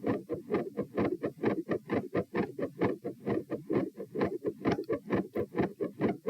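Human heart sounds recorded through a phone against the chest: a fast, regular lub-dub, which the uploader describes as squeaky, with split heart sounds, a midsystolic click and some murmur at the first heart sound.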